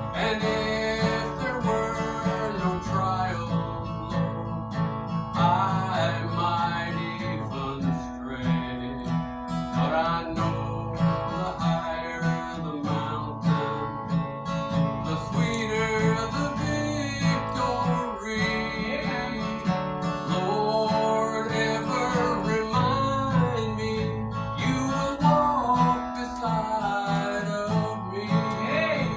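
Acoustic guitar strummed in a gospel song, with a melody line above it that slides and bends in pitch.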